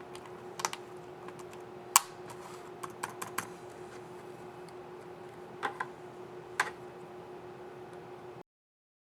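Dell Latitude 3590 laptop keys clicking as they are pressed: scattered single presses, a quick run of four, and a pair, over a faint steady hum. The sound cuts off shortly before the end.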